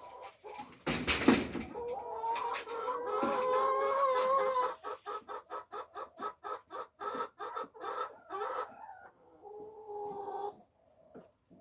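A hen calling: a long drawn-out call, then a rapid run of clucks at about five a second, then another long call near the end. A sharp thump about a second in.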